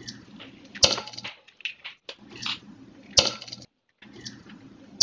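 Eggs cracked one after another on the rim of a ceramic bowl: three sharp shell cracks about two seconds apart, each followed by a short wet rustle as the egg drops in.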